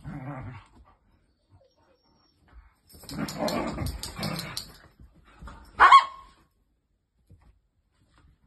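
Two dogs play-fighting: a short growl at the start, then a longer stretch of growling and scuffling about three to five seconds in, and one sharp, loud bark about six seconds in.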